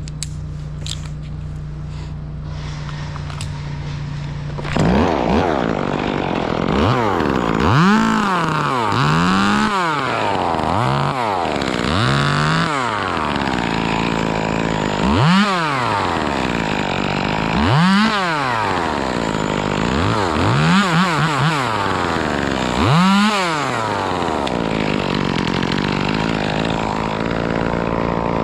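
Chainsaw idling steadily, then from about five seconds in revved hard and let back down again and again, about a dozen rises and falls in pitch.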